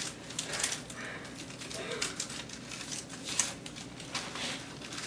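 Wrapping paper rustling and crinkling as presents are handled and unwrapped, in irregular scattered crackles.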